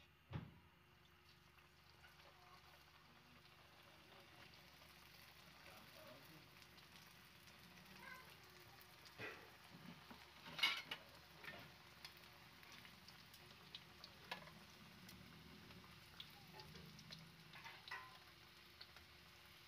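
Samosas frying in hot oil in a pan: a faint, steady sizzle with scattered pops and clicks, the sharpest about halfway through, and a short knock right at the start.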